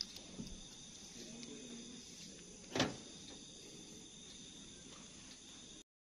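Faint steady background with thin high-pitched tones, broken once about three seconds in by a single short knock or click; the sound cuts off suddenly near the end.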